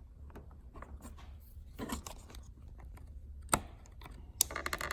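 Light clicks and taps of a small screwdriver working a plastic tether clip. There is a sharper click about three and a half seconds in and a short rattle of clicks near the end.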